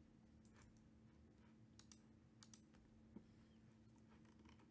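Near silence with a faint steady low hum and a few faint, scattered computer clicks, some in quick pairs.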